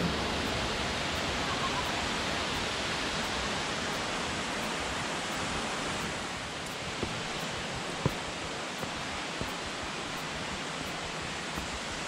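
Waterfall rushing: a steady, even noise of falling water on rock, easing slightly after about six seconds. There are a couple of faint knocks a little past the middle.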